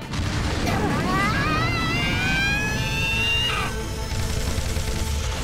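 Anime mecha-battle soundtrack: background music mixed with science-fiction sound effects over a steady low rumble. A high, wavering whine rises in pitch from about a second in and cuts off near four seconds.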